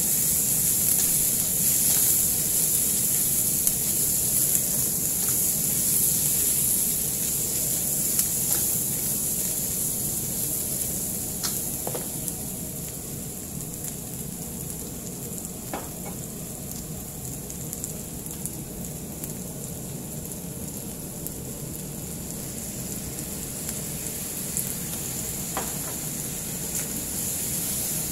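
Fried chicken wings and chopped vegetables sizzling in a wok as they are stir-fried with a spatula, with a few light clicks of the spatula against the pan. The sizzle eases somewhat after about ten seconds.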